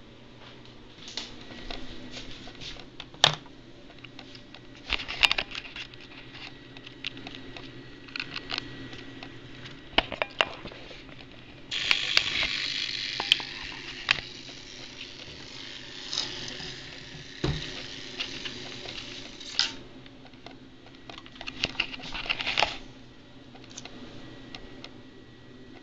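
Handling noise from a PVC-tube RC bait boat being picked over by hand: scattered clicks and knocks, with a stretch of scraping hiss lasting about eight seconds from roughly twelve seconds in.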